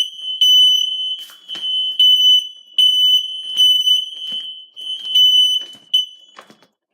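Smoke alarm sounding a loud, shrill beeping alarm, set off by canned test smoke sprayed at its sensor; it falls silent about six seconds in. Faint knocks and rustles come with it.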